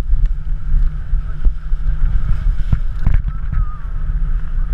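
Wind rumbling hard on an action camera's microphone as a towed tube skims behind a motorboat at speed, with water spray hissing and sharp knocks and slaps as the tube bounces over the wake.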